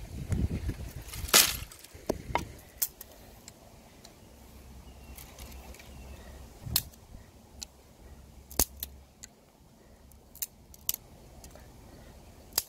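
Dry twigs being snapped and laid out for a small campfire: a scattering of sharp snaps and clicks, the loudest about a second and a half in, with rustling in the grass during the first second or so.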